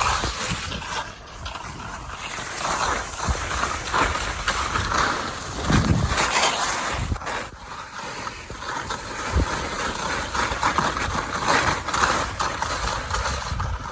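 Wind rushing over the microphone, with a few irregular low thumps.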